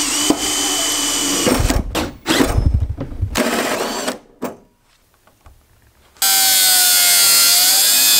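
Cordless drill boring through sheet-metal door skin, running in several stop-start spurts, then a short pause. About six seconds in, an angle grinder with a cut-off wheel starts cutting the sheet metal with a steady, loud, high whine.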